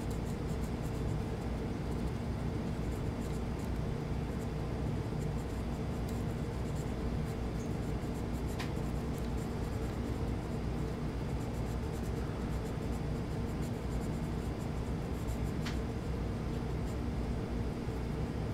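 Felt tip of a gun blue pen scratching faintly against an S30V stainless knife blade tang as bluing is applied, over a steady low hum. Two light ticks come through, one near the middle and one later.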